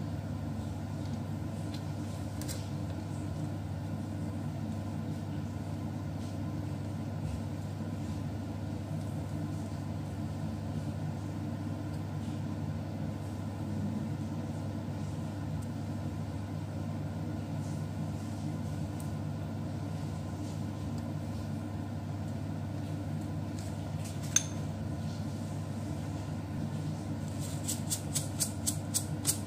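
A steady low mechanical hum throughout. Near the end, a plastic shaker of sesame seeds rattles in quick shakes, about five a second, as seeds are sprinkled over a tray of buns.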